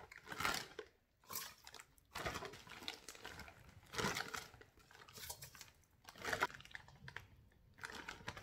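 Plastic zip-top freezer bag crinkling and rustling in irregular bursts as it is opened and handled, with frozen blueberries rattling into a stainless steel pot.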